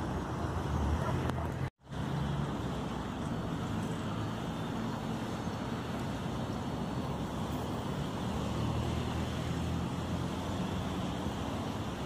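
Steady rumble of road traffic passing at a distance, with a moment's complete dropout about two seconds in.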